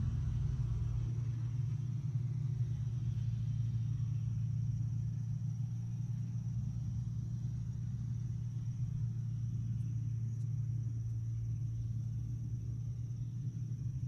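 Heavy diesel machinery running steadily: a deep, even engine rumble, with a faint steady high-pitched tone above it.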